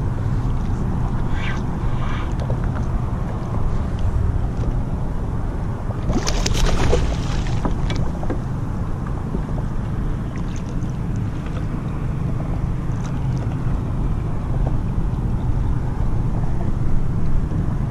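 Wind rumbling on the microphone over choppy water slapping against a kayak's hull, steady throughout, with a louder burst of splashing about six seconds in.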